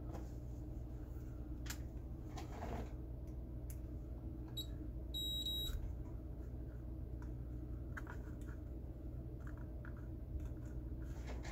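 Steady low electrical hum, with faint clicks as alligator-clip test leads are handled and clipped onto a relay's pins. A short, high electronic beep sounds about five seconds in.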